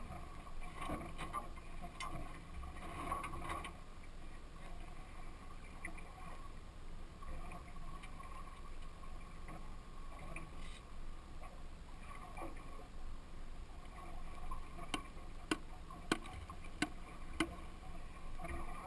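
Steady sea and hull noise on a small fishing boat drifting on open water, with a run of about five sharp clicks or knocks, roughly half a second apart, about three-quarters of the way through.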